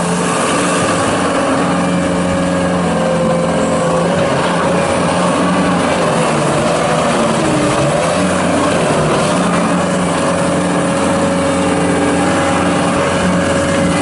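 A 2017 John Deere 331G rubber-track skid steer loader's diesel engine running steadily at speed.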